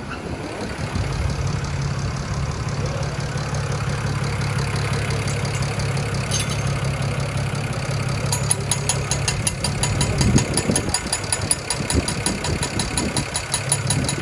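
BMW 335i's N54 twin-turbo inline-six idling steadily, freshly installed in an engine swap. A fast, light, regular ticking joins in from about eight seconds in.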